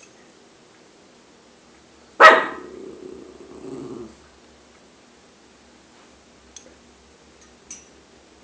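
A dog gives one sharp bark about two seconds in, followed by a lower growl that lasts about two seconds.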